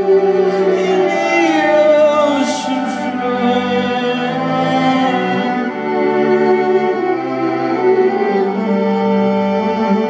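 Live bowed violin music: several sustained violin notes layered into a drone, with a phrase that slides downward in pitch about two seconds in.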